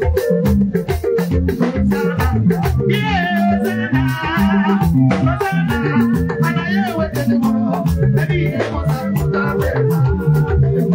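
Live Nigerian gospel band music played loud through a PA: a stepping keyboard bass line and a busy, even beat with rattling shaker percussion, under a woman singing into a microphone.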